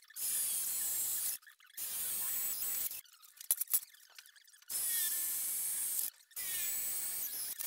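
Cordless drill boring holes into a steel frame member, the bit cutting with a hissing, high-pitched whine. It runs in four short spells, with a pause and a few clicks in the middle.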